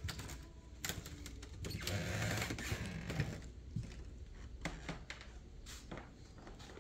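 Scattered clicks and knocks of movement in a quiet room, with a rustling swell about two to three seconds in.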